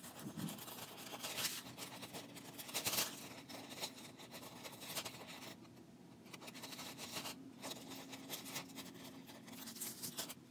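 Small scissors snipping through tracing paper along a pencilled oval: quiet, irregular snips with paper rustling, the loudest cuts about a second and a half and three seconds in.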